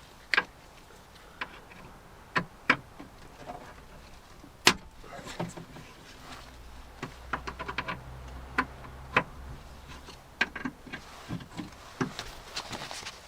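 Irregular clicks and knocks of tools and metal parts as the lock mechanism inside a Land Rover Discovery 2 rear door is worked loose, the sharpest knock a little over a third of the way in. A faint low hum runs through the middle.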